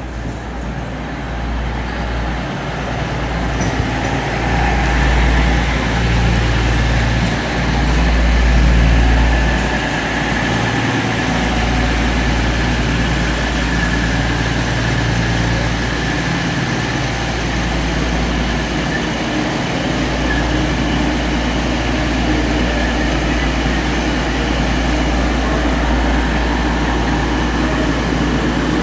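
Diesel engines of an East Midlands Railway Class 222 Meridian unit running in the platform. The deep steady rumble builds over the first eight or nine seconds, then holds.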